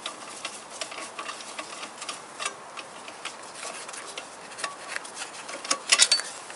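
Irregular light clicks and taps, with a quick run of sharper clicks near the end.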